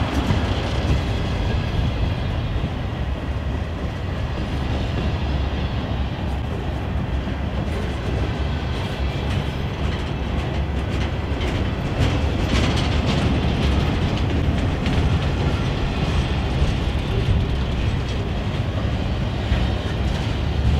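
Freight train cars rolling past: a steady low rumble of steel wheels on the rails. Knocking clicks of the wheels crossing rail joints come more often from about twelve seconds in.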